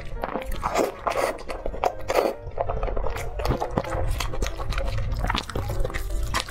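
Close-up eating sounds: noodles slurped in wet pulls during the first couple of seconds, then chewing with wet mouth clicks.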